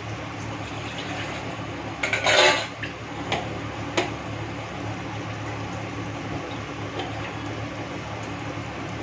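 Kitchen utensils clattering: a brief loud rattle about two seconds in, followed by two sharp metal clinks, over a steady low hum.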